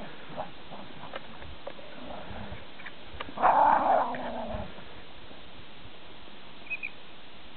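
A single animal call, about a second long, a little over three seconds in, with faint scattered taps and a brief high double chirp near the end.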